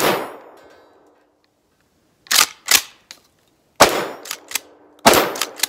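Pump-action shotgun fired three times, at the start, just under four seconds in and about a second later, each blast ringing out in the woods, with the sharp double clack of the pump being racked between shots.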